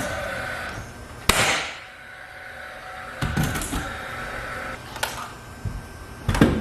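A sharp crack with a short ringing tail about a second in, then scattered knocks and clatter and a loud double hit near the end: hard impacts from work with 2x4 lumber and tools.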